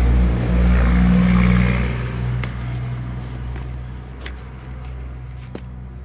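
A motor vehicle's engine running steadily and then fading away over several seconds. A few sharp clicks come from gear being handled in a nylon sling bag.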